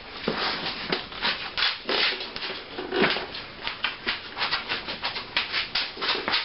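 Close rustling and rubbing of clothing and hands in quick, irregular strokes.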